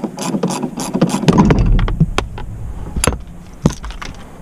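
Ratchet wrench clicking in a quick run, about five clicks a second, as the rear shock's upper mounting bolt is backed off. About a second in it gives way to a low rumbling clatter, followed by a few single knocks.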